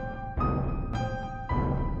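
Background music: a repeating melody of struck notes, a new note about twice a second, over a low pulsing bass.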